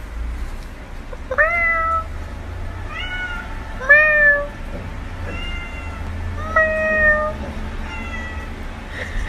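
Calico cat meowing repeatedly: about six short meows, each rising and then levelling off, roughly one every second and a half.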